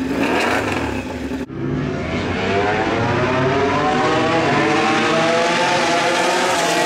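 Racing superbike engine on track under hard acceleration, its note climbing steadily for several seconds and then dropping sharply at the very end. Before that, for the first second and a half, there is engine noise from the pit lane.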